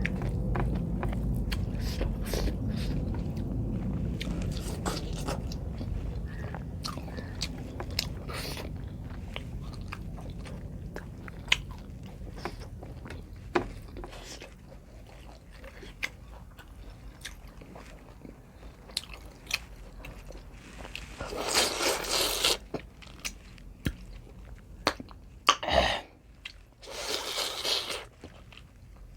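Close-up eating sounds: chewing and biting of pork curry with rice, with many small mouth clicks and smacks. Two longer noisy bursts come about two-thirds of the way through and again near the end.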